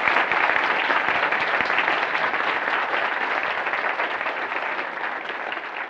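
Audience applauding, a dense steady patter of many hands that tapers off near the end.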